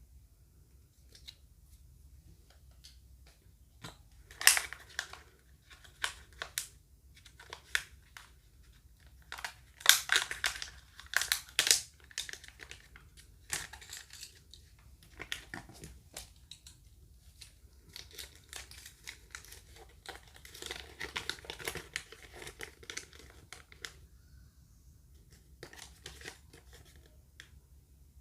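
Plastic wrapping being crinkled and torn open by hand in bursts of sharp crackling, the sound of unwrapping a Kinder Joy egg and its toy packets.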